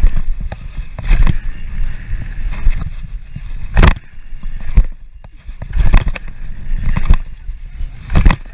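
Mountain bike ridden fast over a dirt jump track, heard from a rider-worn GoPro: heavy wind rumble on the microphone, broken by about six sharp clunks and rattles from the bike over bumps and landings. The loudest clunk is a little under four seconds in.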